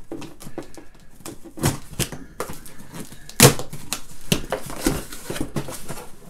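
A cardboard shipping package being handled and opened by hand: irregular clicks, scrapes and rustles, with a sharp knock about three and a half seconds in.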